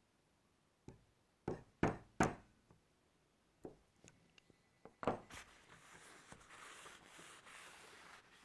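A small hammer tapping side dot markers into drilled holes along the edge of a guitar neck: about six sharp taps in the first five seconds, the loudest around two seconds in. Then a cloth rubs steadily along the neck as it is wiped down.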